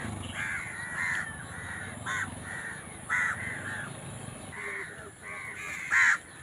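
Crows cawing over and over, a run of short harsh calls, the loudest about six seconds in.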